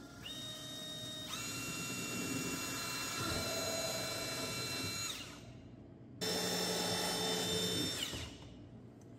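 Power drill boring holes through the plastic wall of a toolbox. It runs twice: a first run of about five seconds whose motor whine steps up in pitch about a second in, then a shorter run of about two seconds that starts abruptly.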